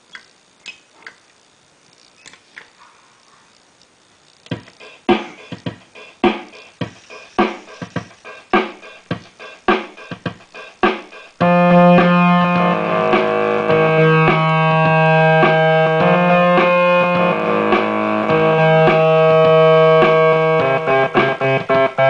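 Homemade joystick synthesizer playing electronic tones. After a few faint clicks it starts a steady run of short plucked-sounding notes, about two or three a second, then about halfway through switches to a loud sustained buzzy tone that jumps between pitches as the joystick moves, turning into rapid choppy notes again near the end.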